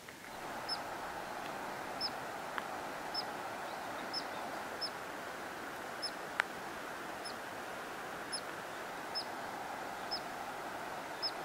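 A bird or small animal repeating a single short high chirp about once a second, over a steady rushing noise, with one sharp click about halfway through.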